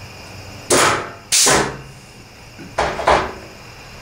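Pneumatic hand punch cutting plug-weld holes in the sheet-steel flange of a replacement door skin: four sharp air-driven snaps in two pairs, each trailing off in a short hiss.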